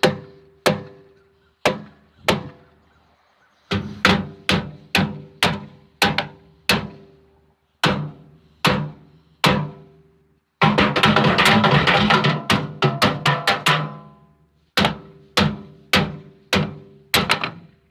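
Drum-like percussion: single sharp hits with a short pitched ring, spaced irregularly, turning into a fast roll of hits for about three seconds in the middle.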